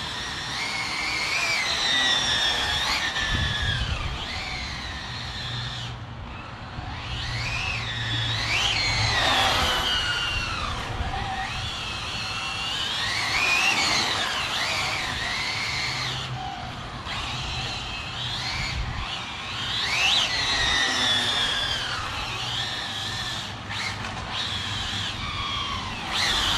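Arrma Felony RC car's twin brushless electric motors whining, the pitch rising and falling again and again as the car speeds up, slows and drifts, with its tires scrubbing and sliding on asphalt.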